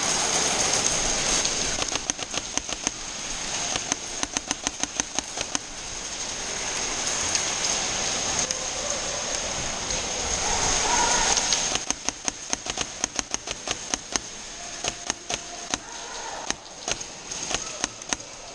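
Airsoft guns firing: runs of sharp cracks, about five a second, in two stretches, over a steady hissing noise.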